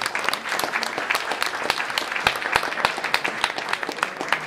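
Audience applauding, many hands clapping in a dense, irregular patter.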